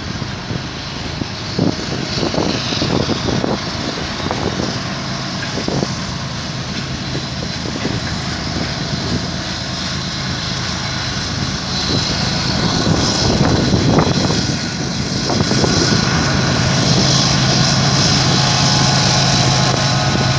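Freight train's tank cars rolling past, with steel wheels clicking over the rails. Near the end, a mid-train CN diesel locomotive's engine drone comes in as a steady low hum and the whole sound grows louder.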